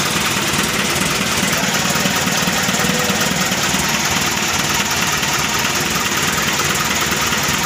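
Mitsubishi Colt Diesel 100 PS four-cylinder direct-injection diesel engine idling steadily, just started after being fitted, and running smoothly.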